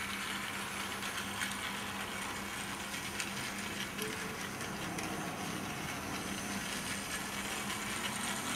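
Small battery-powered toy train motor running steadily, a light whirr with a low hum, as the copy Tomy Thomas engine pulls two coaches along plastic track, with a few small clicks.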